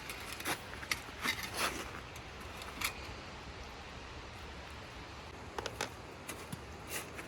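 Scattered short metallic clicks and scrapes as a lever-handle grease gun is loaded with a grease tube, the clicks bunched in the first three seconds and again near the end.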